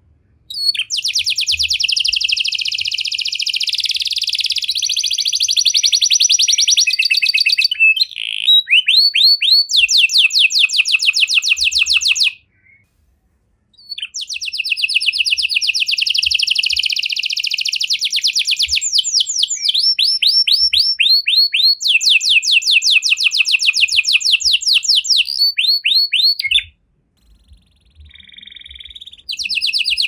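Red-factor domestic canary singing long, fast, high trills of rapidly repeated notes, broken into phrases. It sings in two long stretches with a short pause about twelve seconds in, falls silent again near the end, then starts a new phrase.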